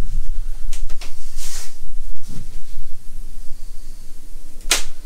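Handling noise from a handheld camera being moved about: a low rumble with rubbing and faint ticks, a short hiss about a second and a half in, and one sharp click near the end.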